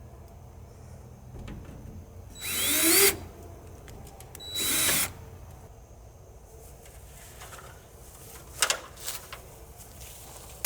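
Cordless drill/driver run twice in short bursts, driving screws, its motor whine rising as it spins up, followed by a few light clicks.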